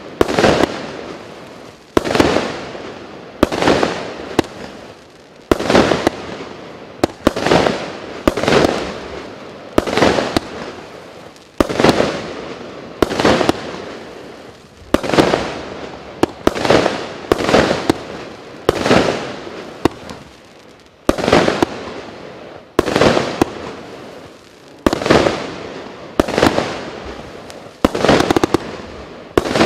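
A 25 mm firework battery (cake) firing shot after shot, about one every one and a half seconds. Each shot is a sharp bang that trails off over about a second as the brocade-crown shell bursts.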